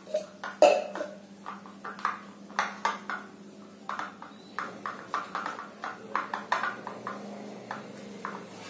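A small metal utensil scraping and clicking against a plate in short, irregular strokes, about two or three a second, as dry crushed instant noodles and sliced garlic are stirred together.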